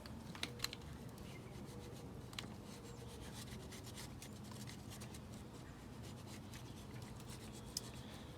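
Spline roller rolling screen spline into the groove of a window-screen frame: faint rubbing with a few light clicks.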